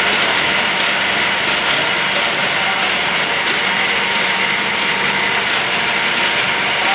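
Buckle-plate paper folding machine running steadily, feeding printed sheets through its rollers and fold plates: a constant, even machine noise.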